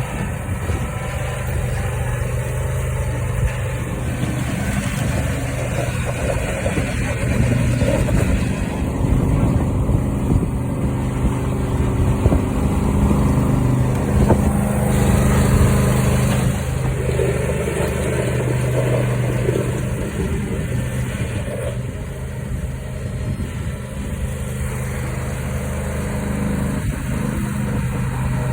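Plow truck's engine running under load, its note rising and falling as the truck pushes snow.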